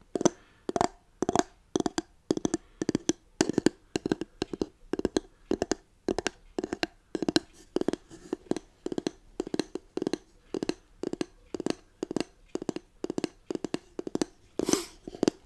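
Fingers tapping on the lid of a WoodWick jar candle: short, sharp taps in quick clusters, roughly two clusters a second.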